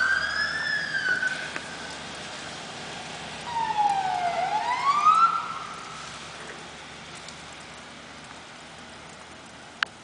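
Fire truck siren wailing in slow sweeps, rising and falling in pitch, then fading away as the truck drives off. A single sharp click near the end.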